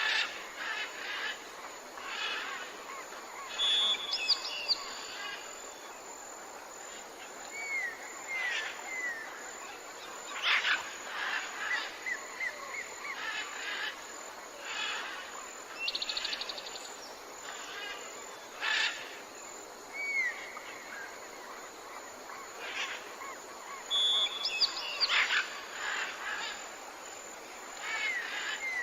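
Wild birds calling and singing over a steady background hiss, with short whistled notes and chirps coming every few seconds.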